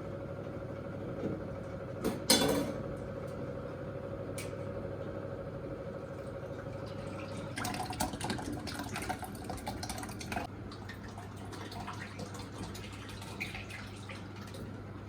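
Sour yogurt thinned with water being poured into cloth straining bags, liquid splashing and dripping, thicker in the second half. A sharp knock of a dish comes about two seconds in.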